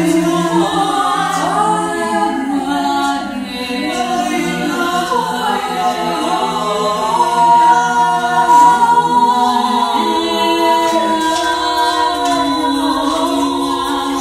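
Several voices singing a wordless improvised a cappella piece, layering held notes that overlap and slowly glide between pitches. In the middle, one high note is held for several seconds above the others.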